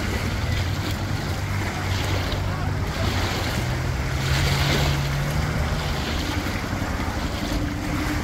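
Outboard motor of a small fishing boat running as the boat pulls away across the water, its hum rising in pitch about four seconds in. Wind buffets the microphone and small waves lap at the shore.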